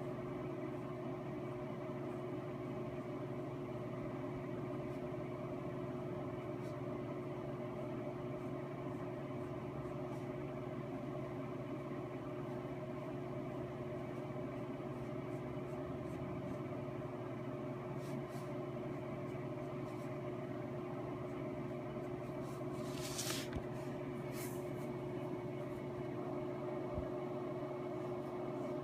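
Steady machine hum with a few held tones, at an even level throughout: room tone from a running appliance or fan. Two brief faint noises a little over three-quarters of the way through.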